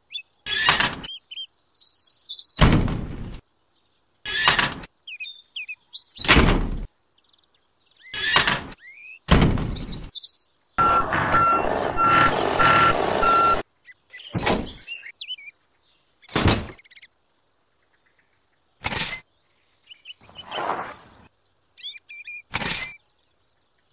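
A string of separate short knocks, clacks and thuds as small toy parts are handled and set down, with faint bird chirps between them. About halfway through comes a few seconds of steady mechanical rumble with a high beep repeating through it.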